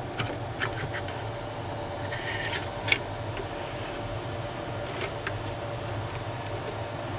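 6 TB hard drive in a plastic drive tray being slid into a UniFi NVR drive bay: light scrapes and small clicks, with a sharper click just before three seconds in. Underneath is the steady hum of the rack equipment's fans.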